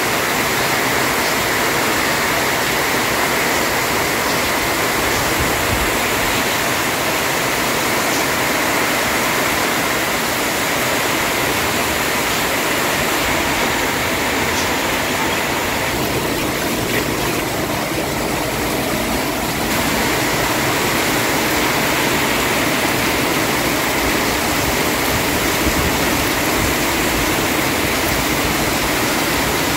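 Rain falling steadily, a dense even hiss that thins slightly for a few seconds about halfway through.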